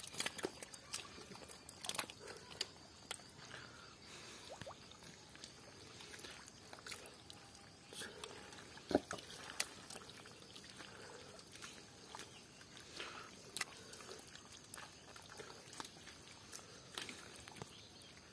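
Hands digging in thick, wet pond mud: faint, irregular squelches and sharp wet clicks, the loudest about nine seconds in.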